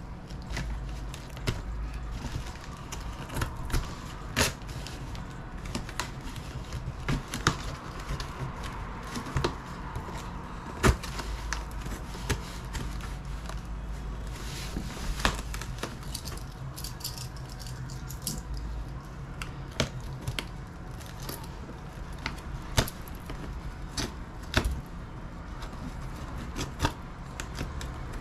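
Fabric and packaging being handled during an unboxing, rustling and shifting, with irregular sharp clicks and knocks over a steady low hum.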